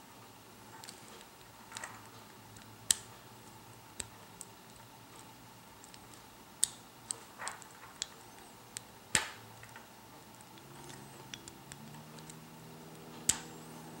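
Small sharp metallic clicks of a lock pick working the pins of a CompX Ace II tubular lock core held under tension by a Sparrows Mantis tension tool. About ten clicks come at irregular intervals, the loudest about three seconds in and near the end.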